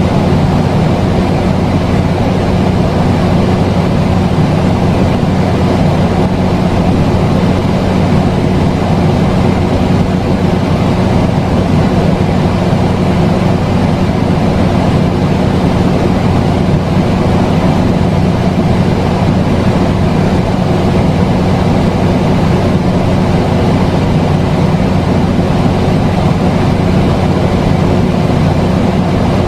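Steady low rumbling noise with a constant hum underneath, unchanging throughout, like a vehicle or engine drone.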